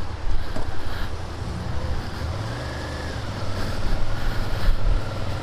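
Suzuki Gladius 650's V-twin engine running at low revs, heard through a microphone inside the rider's helmet. Its pitch rises about two seconds in and it gets louder toward the end as the bike pulls away.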